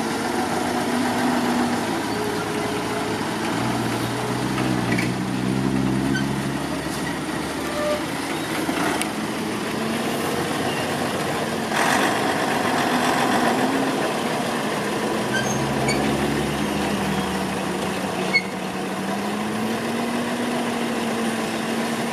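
Heavy dump truck's diesel engine running, its pitch rising and falling as the revs change, with a brief rush of noise about halfway through and a single sharp click late on.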